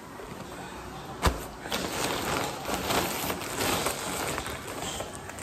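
Thin plastic packaging crinkling and rustling as it is handled and opened, after a single sharp click about a second in.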